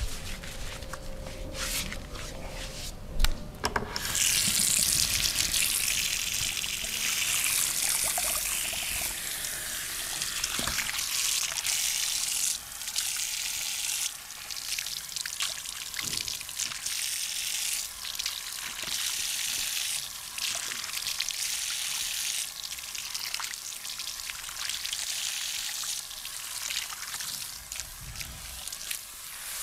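A few light clicks, then from about four seconds in a dense, scratchy close-up rubbing noise full of small crackles, going on with brief pauses.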